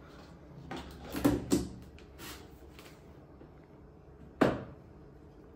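Kitchen handling sounds: containers and utensils set down and moved on the counter, a few light clicks and knocks, with one sharper knock about four and a half seconds in.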